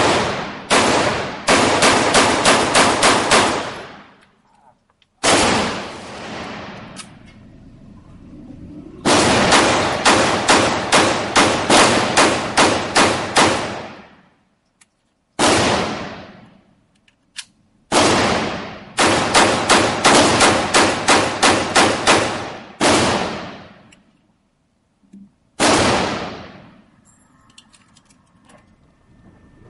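Gunfire: rapid strings of shots, about three to five a second, each string lasting a few seconds, with single shots between them. Each string ends in a long echoing decay.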